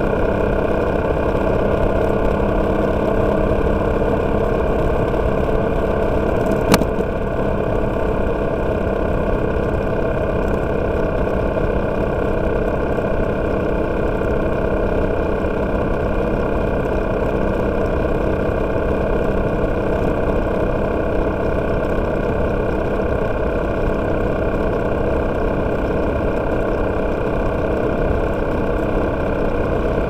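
Motorcycle engine running steadily at an even cruising speed, its pitch unchanging, with road noise underneath; the engine is freshly overhauled. A single sharp click about seven seconds in.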